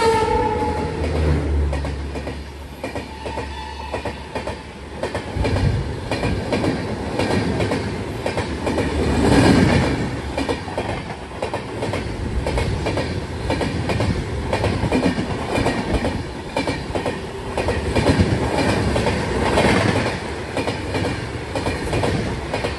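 A passenger train hauled by an electric locomotive passing close alongside, heard from the doorway of another moving train: rapid, continuous clickety-clack of wheels over rail joints with rushing air. The tail of a locomotive horn drops in pitch right at the start.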